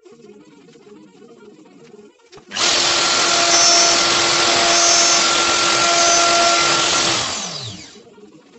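Electric power tool motor switched on suddenly and running steadily for a few seconds, then winding down with a falling pitch after it is released.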